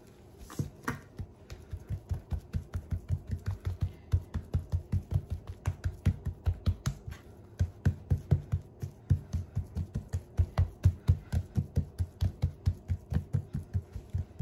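Hands patting and slapping a raw steak on a plastic cutting board to work garlic salt into the meat: a quick, even run of soft slaps, about four a second.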